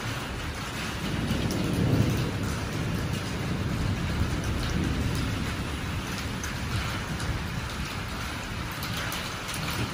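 Steady rain falling, with a low rolling rumble of thunder that swells about one to three seconds in and again near the middle.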